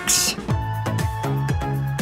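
Electronic background music with a steady thumping beat, opening with a brief burst of hiss.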